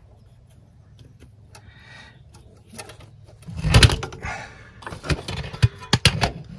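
Hand work on an engine's cylinder head: a faint steady background, then a loud knock about three and a half seconds in, followed by a quick run of sharp clicks and knocks near the end.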